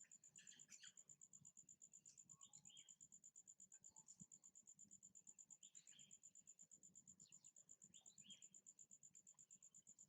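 Faint, steady insect chirring: a high tone pulsing rapidly and evenly, with a few short, faint chirps scattered over it.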